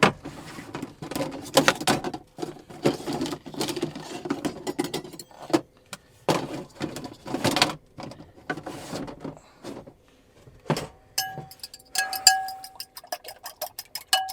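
Cooking gear and utensils being handled and set down in a small space, with irregular knocks, clatter and rustling. Near the end comes a fast run of sharp clicks.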